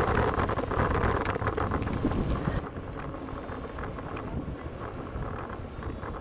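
Wind buffeting the microphone, with bicycle tyres rolling along a country lane. It is loud and rough for the first two and a half seconds, then drops suddenly to a quieter, steadier rolling noise.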